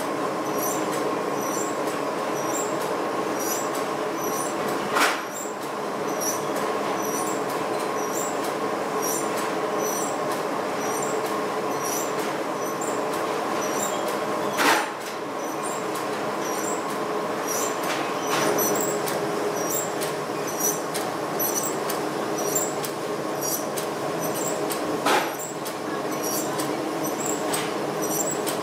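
Steady drone of ammunition-factory machinery with several held hums and a light high ticking about twice a second. Four louder sudden bursts stand out, several seconds apart.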